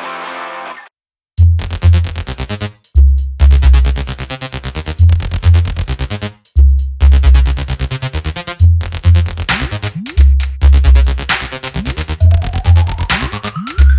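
Background electronic dance music with a heavy bass beat; a held chord before it cuts off just under a second in, and after a short gap the beat comes in, with a rising synth sweep near the end.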